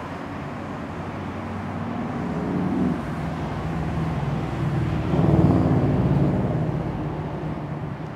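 A motor vehicle's engine running close by, its low drone swelling louder about five seconds in and then easing off.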